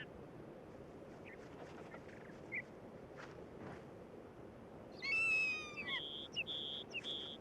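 Bird calls over a faint outdoor background: one clear call about five seconds in that drops in pitch at its end, then three short, high, even piping notes.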